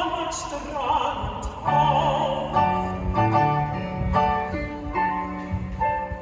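Music: a singing voice with wide vibrato in the first couple of seconds, then a run of instrumental notes over a low bass line.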